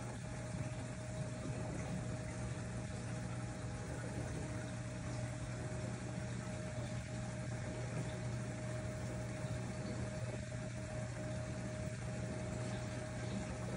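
Reef aquarium pumps running: a steady low hum with a constant mid-pitched whine over a steady rush of circulating water.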